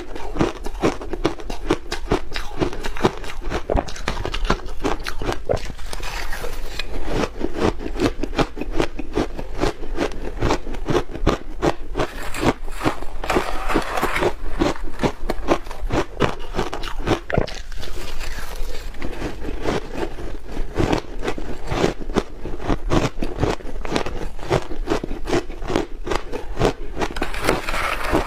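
Ice being bitten and chewed close to the microphone: a fast, continuous run of crisp crunches.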